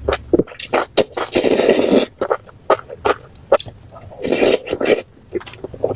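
Close-miked eating of spicy noodles: quick wet chewing and lip-smacking clicks throughout, with two longer noisy slurps, the first about a second in and the second about four seconds in.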